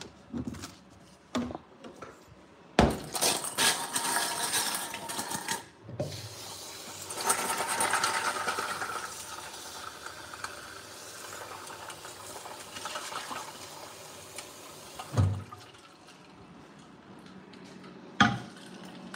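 Ice cubes clattering into a stainless steel bowl, then tap water running into the bowl of ice for about nine seconds to make an ice bath. Near the end come two knocks as the bowl is set down.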